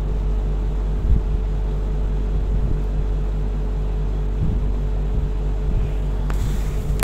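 Steady low hum of supermarket room tone with a few faint handling knocks, and a couple of sharp clicks near the end.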